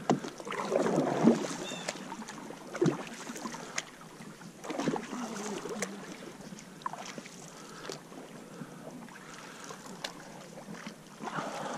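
Canoe paddling: paddle strokes splashing and pulling through calm lake water, with a few short knocks in between.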